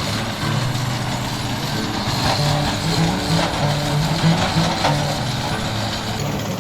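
Heavy rock saw trencher running steadily as it cuts through rock, a loud, continuous mechanical noise, with music playing alongside.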